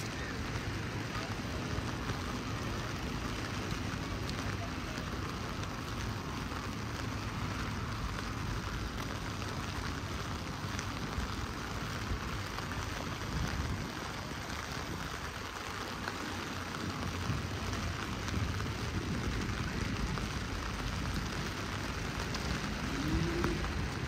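Heavy rain falling steadily: a dense hiss full of fine pattering drops, with a low rumble underneath. A brief rising tone comes through about a second before the end.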